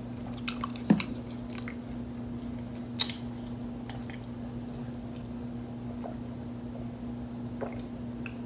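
Close-up chewing of a mouthful of beef taco, with scattered wet mouth clicks and smacks. A steady low hum runs underneath.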